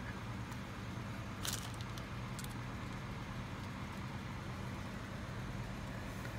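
A steady low mechanical hum in the background, with a few short clicks of small metal parts and a pick being handled on a brake caliper, the loudest about one and a half seconds in.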